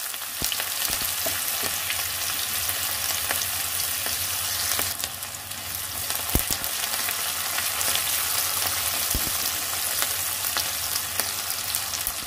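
Chopped onion and garlic sizzling in hot mustard oil in a kadai, a steady frying hiss, stirred with a spatula that now and then knocks and scrapes against the pan.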